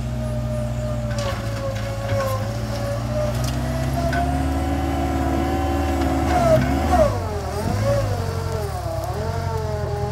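TCM Tomfighter 808A mini wheel loader's engine running steadily as the machine drives. About seven seconds in, as the bucket digs into a dirt pile, the engine labours and dips in pitch. A higher whine from the loader's hydraulics rises and wavers up and down as the loaded bucket lifts.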